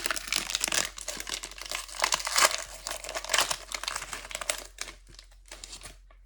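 Trading-card pack wrapper crinkling and tearing as it is ripped open, loudest about two and a half seconds in, then dying down to a few faint rustles near the end.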